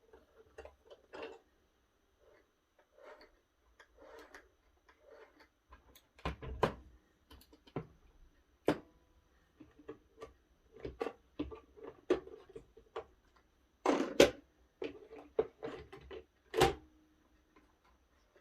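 Plastic parts and packaging of a robot vacuum being handled: irregular clicks, taps and knocks with light rustling, a few sharper knocks in the second half.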